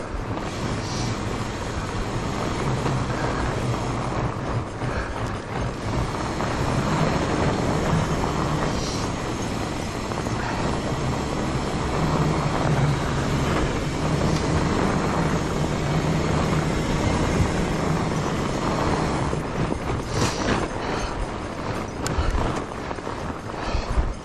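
Fatbike riding on a packed-snow trail: a steady rumble and hiss from the wide tyres rolling over the snow, with a few short knocks near the end.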